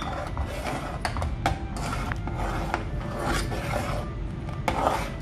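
Metal slotted spatula stirring and scraping against a metal cooking pot of thick, simmering milk, with irregular clicks and scrapes.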